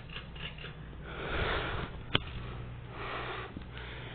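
A 52-inch Hunter ceiling fan running on medium speed, its motor giving a steady low hum. Two breathy swells of noise close to the microphone, about a second in and about three seconds in, and a single sharp click just after two seconds.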